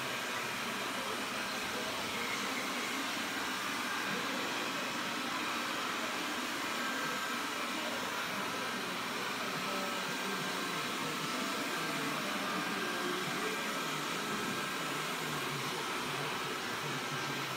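Xiaomi Mi robot vacuum running: a steady, unbroken whir of its suction motor.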